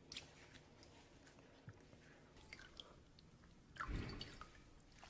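Faint wet clicks and squishes of hands working water into hair, with a louder wet rustle about four seconds in.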